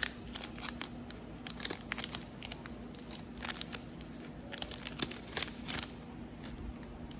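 Foil wrapper of a Panini Prizm basketball card pack crinkling and tearing as it is ripped open by hand, in several bursts of crackles.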